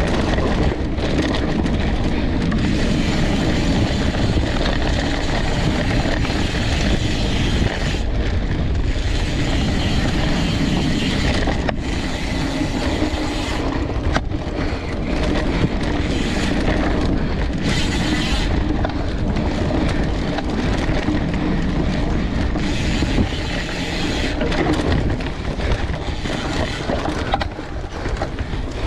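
Mountain bike ridden fast along a dirt forest trail, heard from a handlebar-mounted camera: a continuous rush of tyre noise and wind on the microphone, with the bike rattling over the bumps.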